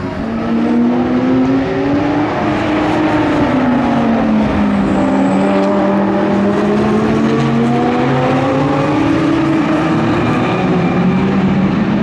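A pack of GT4 race cars, a Mercedes-AMG GT4's twin-turbo 4.0-litre V8 among them, passing close together at speed. Several engine notes overlap; they drop in pitch as the cars go by, then climb again as the cars accelerate away.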